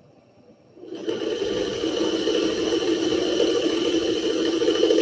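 A 60-year-old Singer 301 sewing machine starts about a second in and then runs steadily, stitching a seam along a quilt strip set.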